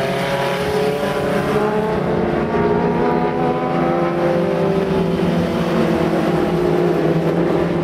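Several Legends race cars running together through a turn, their motorcycle engines making layered tones that rise slightly, then hold steady.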